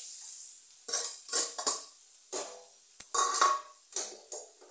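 A spoon knocking and scraping against the kadhai in a run of irregular clanks as crumbled boiled potatoes are tipped in and stirred.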